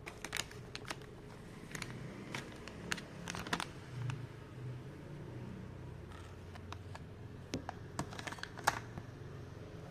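Irregular light clicks and taps of a small USB OTG cable and its plastic packaging being handled while unboxed, over a low steady hum.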